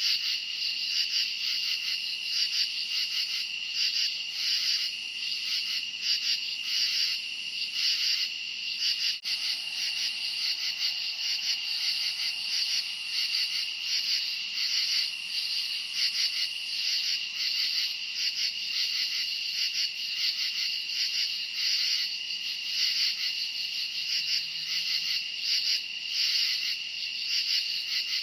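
A chorus of crickets chirping on a summer night, a continuous high, rapidly pulsing trill that never lets up.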